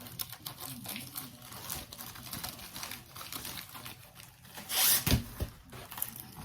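Packaging rustling and crinkling as a diamond painting kit is handled and opened, with a louder tearing rustle about five seconds in followed by a couple of soft thumps.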